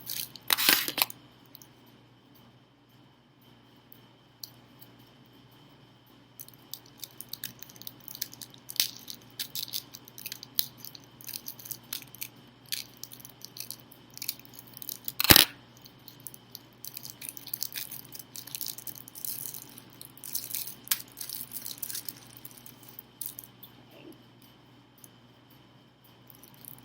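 Rustling and scattered light clicks from handling switch plate covers, with one sharp click about fifteen seconds in.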